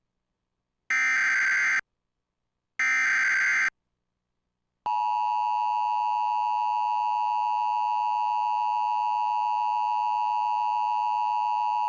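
Emergency Alert System tones from a DASDEC encoder: two short, harsh digital SAME header data bursts about two seconds apart. About five seconds in, the steady two-tone EAS attention signal starts.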